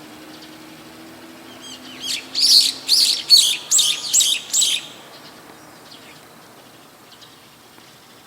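Brown-eared bulbul calling: a loud, shrill run of about seven rapid notes, each sweeping up and down in pitch, starting about two seconds in and lasting just under three seconds, followed by a few faint calls.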